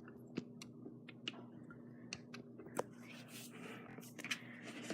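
A thick, creamy slime base of glue, shaving cream and lotion being stirred in a container: faint soft squishing with scattered light clicks of the stirring tool against the container.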